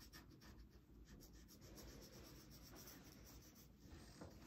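Felt-tip markers rubbing on paper in many quick back-and-forth strokes as an area is coloured in, faint.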